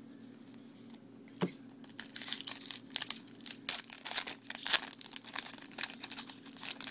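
A baseball card pack wrapper being torn open and crinkled. After a single tap about a second and a half in, a quick run of crackling rustles starts about two seconds in and goes on to the end.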